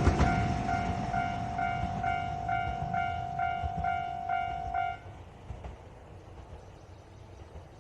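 Level crossing's electronic warning bell ringing about twice a second, then stopping about five seconds in, while the rumble of the JR Hokkaido H100 DECMO diesel-electric railcar that has just passed fades away.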